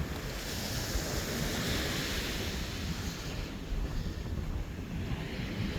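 Ocean surf washing up the beach, the hiss of a wave swelling and fading about two seconds in, with wind rumbling on the microphone.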